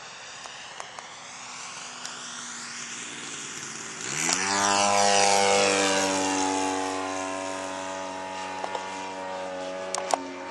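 Engine of a small propeller plane flying overhead, faint at first. About four seconds in it jumps sharply in pitch and gets much louder, holds a steady note for a couple of seconds, then slowly fades. A few sharp clicks come near the end.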